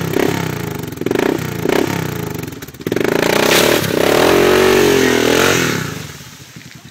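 Yamaha Big Bear ATV's single-cylinder four-stroke engine, just restarted after stalling with tent fabric blocking its intake. It revs in short blips, then is held high for a couple of seconds before dropping back near the end.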